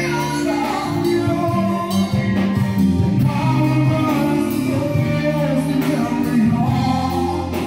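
Live band playing amplified: electric guitars, bass guitar and drums with a steady cymbal beat, and a singer's voice over them.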